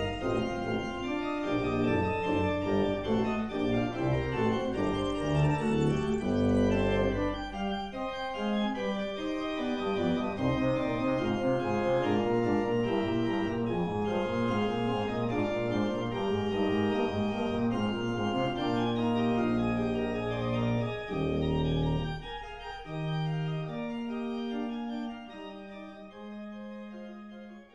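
Organ music with slow, held chords over a bass line, dropping to a softer passage a little after twenty seconds and fading out at the end.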